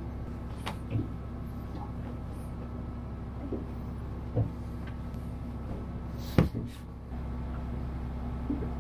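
Bedding being handled and straightened on a boat's cabin berth, with a few soft knocks and one sharper knock about six and a half seconds in, over a steady low hum.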